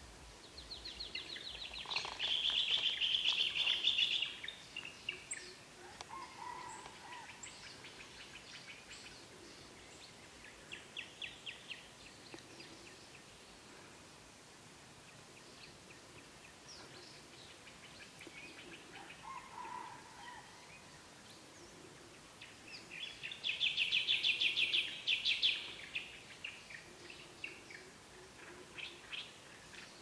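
Dawn chorus of forest birds: two loud, fast trills of rapidly repeated high notes, one about a second in and one past the middle, with scattered chirps and a few lower calls between them.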